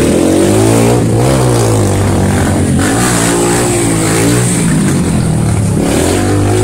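Motorcycle engines revving and running as the bikes ride past, pitch rising and falling with the throttle.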